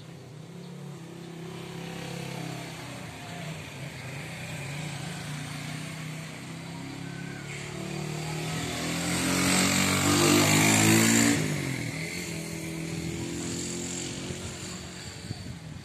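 A motorcycle passing close by: its engine grows louder, is loudest about ten seconds in, then fades as its pitch drops.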